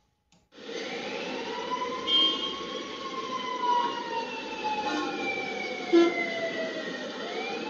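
Music intro: a wailing, siren-like tone that slowly falls in pitch over a steady hiss, then swoops back up near the end.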